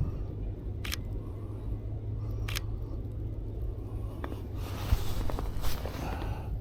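Sony a7R V camera shutter firing twice, about a second and a half apart, over a steady low rumble. Later comes a scraping rustle with a few small clicks.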